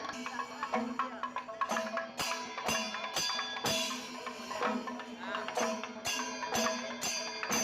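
Instrumental music with a steady percussion beat.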